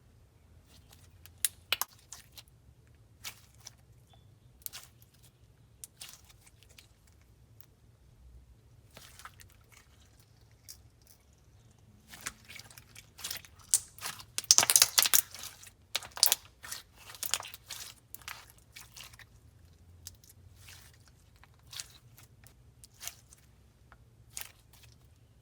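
Slime being squished and pressed by hand, giving scattered sticky crackles and pops that come thickest and loudest around the middle.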